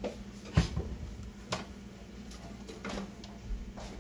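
A few scattered light knocks and clicks from items handled on a kitchen countertop, the strongest about half a second in, over a faint steady low hum.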